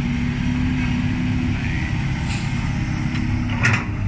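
Diesel engines of a Kobelco SK200 Super crawler excavator and a ten-wheel dump truck running steadily as soil is loaded. A short sharp knock comes near the end.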